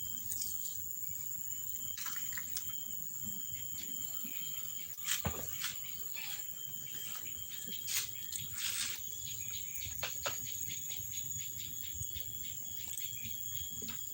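Steady, high-pitched chirring of insects, with a few soft knocks and rustles scattered through it.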